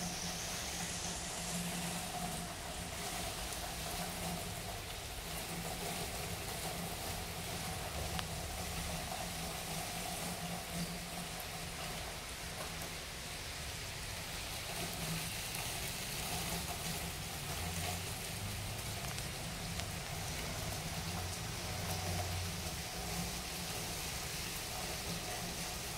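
Steady hissing background noise with a low hum underneath and no distinct events.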